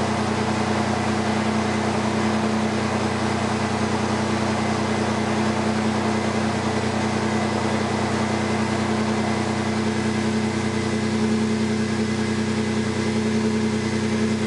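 1998 Toyota 4Runner with a Flowmaster 50 Series muffler idling steadily, heard at the exhaust tip.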